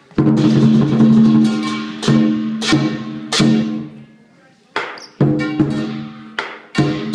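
Lion dance percussion: drum, gong and cymbals struck together in separate crashes that ring and die away, with a quieter pause about four seconds in before the strikes resume.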